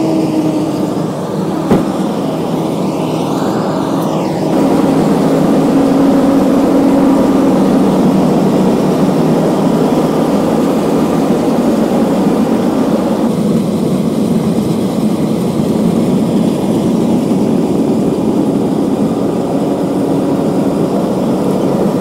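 John Deere S660 combine's diesel engine running steadily as the combine drives slowly toward the field, a steady hum that grows louder about four seconds in as it nears.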